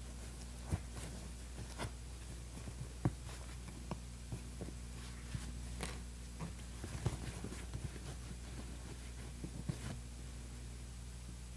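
Hand-stitching leather upholstery: scattered small ticks, taps and rustles as the needle and thread are worked through the leather and the hide is handled, over a steady low hum.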